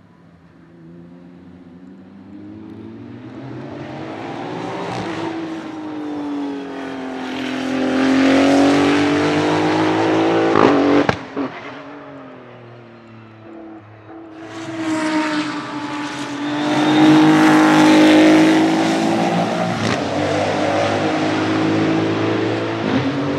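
Maserati MCXtrema's 3.0-litre twin-turbo V6 at full load on track, its pitch climbing as the car accelerates and grows louder, with a sharp crack about eleven seconds in as the sound drops away. The engine then comes back loud from about fourteen seconds, pitch rising and falling through the gears.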